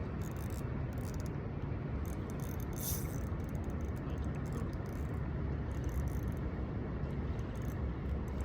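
Steady low rumble of outdoor background noise, with scattered light clicks and rustles from handling gear.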